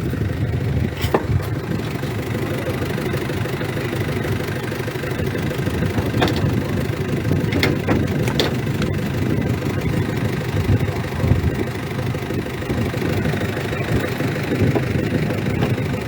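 Car engine running steadily with a low rumble, and a few brief clicks or knocks.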